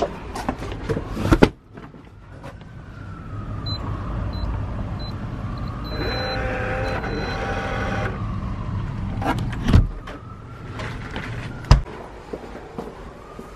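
An electronic door deadbolt gives a run of short high beeps, then its motor whirs for a second or two as the bolt draws back. Sharp clicks and knocks of the door latch and the door being handled come about a second in, around ten seconds and near twelve seconds. A siren wails faintly in the background, rising and falling.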